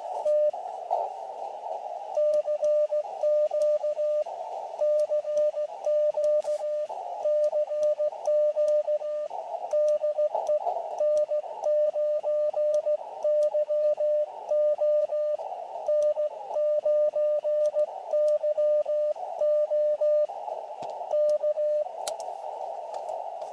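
Morse code (CW) from an Elecraft KX2 transceiver: a single steady tone of about 600 Hz keyed on and off in dots and dashes, with short breaks. Narrow-filtered receiver hiss fills the pauses, and the keying starts about two seconds in and stops near the end.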